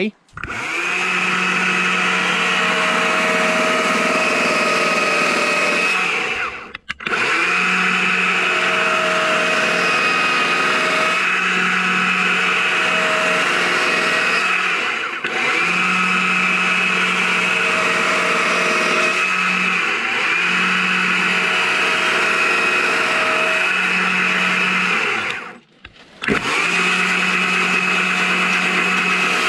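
Chainsaw with a narrow carving bar running at high revs while cutting into a log to carve out a letter. The sound breaks off sharply for a moment twice.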